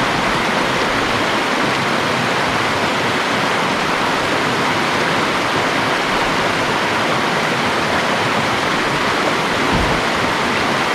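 Rushing water of a small, shallow river rapid, a steady loud rush, heard from a small kayak running down it.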